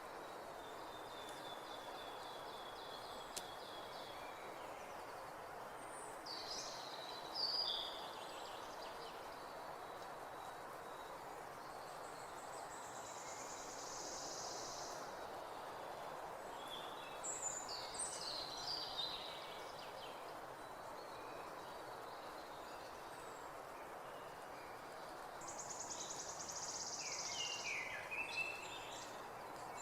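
Songbirds chirping and trilling: scattered high chirps and several buzzy trills of a few seconds each, the loudest bursts about seven seconds in and just before the end, over a steady background rush.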